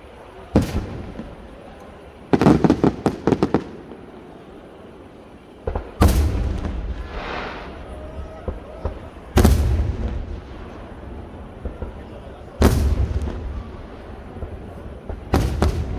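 Aerial fireworks bursting: a series of loud bangs each followed by an echoing rumble, with a rapid volley of cracks about two and a half seconds in and a hiss after the bang near the middle.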